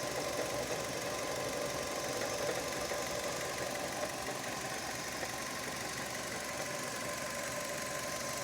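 Fiat Grande Punto 1.4 8v four-cylinder engine running steadily, with a recurring knock-like noise that the owner cannot account for, since the engine otherwise runs normally on both petrol and LPG.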